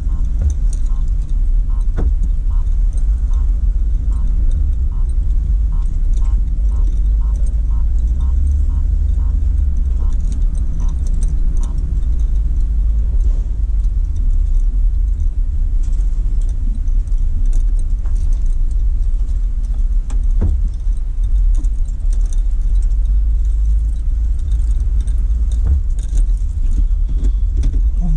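Car interior road noise: a steady low rumble from the engine and tyres, with a light rattle. For the first dozen seconds a turn-signal indicator ticks evenly, about one and a half times a second, then stops.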